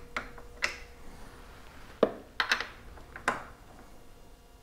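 Socket wrench clicking as it tightens the acorn nuts on a motorcycle's turn signal bracket: several sharp metallic clicks, irregularly spaced, two of them close together a little past halfway.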